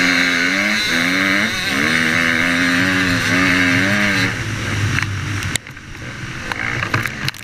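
Dirt bike engine running hard on the throttle, its pitch wavering up and down. About four seconds in the throttle shuts off and the note drops lower, then goes quieter with a few sharp knocks and clicks near the end.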